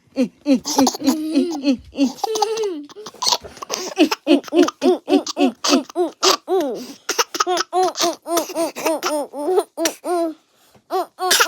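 A baby laughing in quick repeated bursts, about three or four a second, with a short break near the end before the laughter starts again.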